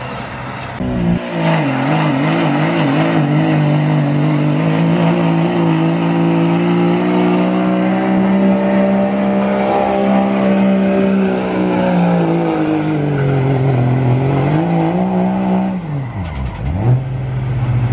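Turbocharged diesel pickup engine at full throttle, pulling a weight-transfer sled: the revs waver quickly for the first few seconds, hold and climb slowly, dip, then drop sharply near the end as the pull stops, settling to idle while a high whistle falls away.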